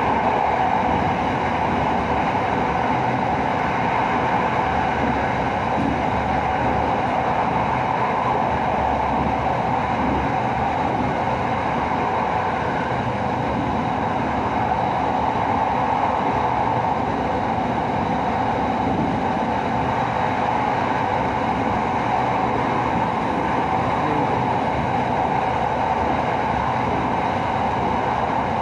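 Inside the passenger car of an SRT Red Line electric commuter train running at steady speed: an even rumble and hiss of wheels on rail and running gear, with a faint thin high tone held throughout.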